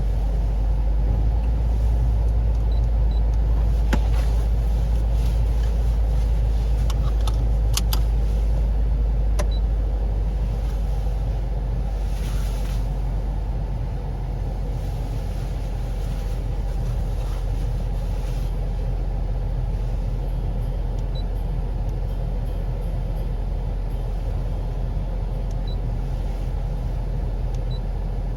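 Suzuki Swift Sport ZC31S running, heard from inside its cabin: a steady low rumble of engine and road, with a few faint clicks about 4 and 8 seconds in.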